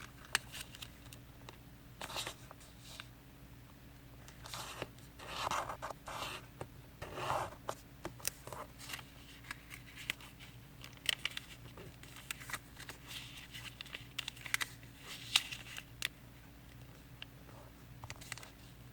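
A square sheet of origami paper being folded and creased by hand: irregular rustling and sliding with short crisp scrapes as the edges are pressed flat, over a faint steady hum.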